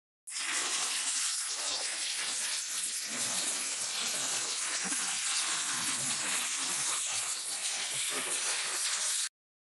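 A steady, even hiss, strongest in the high treble, that cuts in abruptly just after the start and cuts off abruptly near the end.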